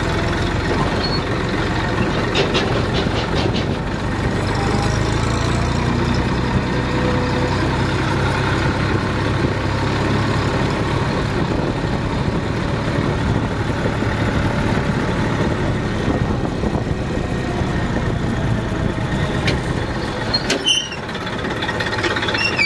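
Tractor's diesel engine running steadily as the tractor drives along, with a continuous low engine note. There is a brief break in the sound near the end.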